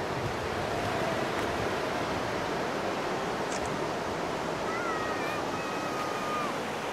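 Steady wash of ocean surf breaking on a sandy beach, with a faint, drawn-out call about two-thirds of the way through.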